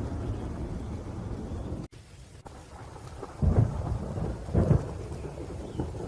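Thunderstorm: rain falling with thunder. A heavy low rumble cuts off suddenly about two seconds in, then two loud rolls of thunder come about a second apart.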